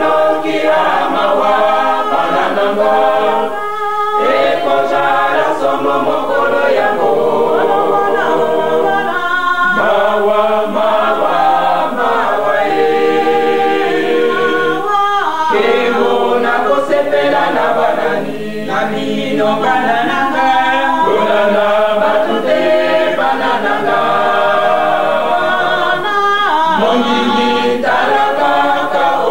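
Choir singing a cappella in several voices, with no instruments, heard through an old cassette recording that sounds dull and muffled.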